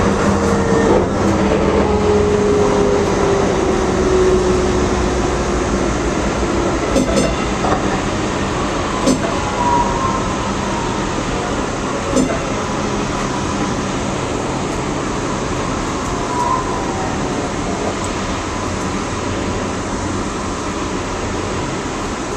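DART light rail train running, heard from inside the front car, with the rumble of the wheels on the track. A whine falls steadily in pitch over the first several seconds, and a few sharp clicks come from the rails. The train is slowing as it nears a station.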